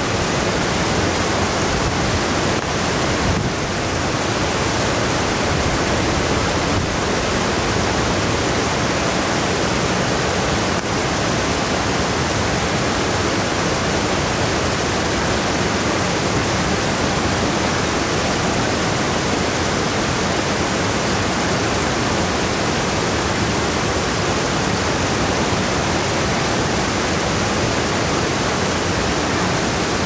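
River rapids and small falls rushing through a narrow rock gorge: a steady, loud rush of whitewater.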